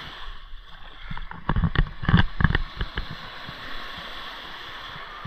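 Steady wash of sea water at the shore, with wind rumbling on the microphone and a cluster of sharp thumps about a second and a half in.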